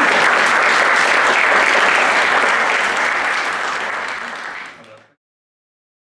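Audience applauding, fading over the last couple of seconds and cutting off about five seconds in.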